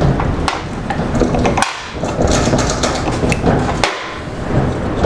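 Needle-nose pliers clicking and tapping against a motorcycle carburettor bank as a small choke-plunger screw is worked loose, a handful of sharp metallic clicks over steady background noise.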